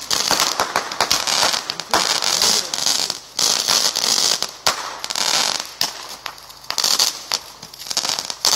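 Fireworks going off in quick succession: sharp bangs and long runs of dense crackling from glittering aerial bursts, surging again and again.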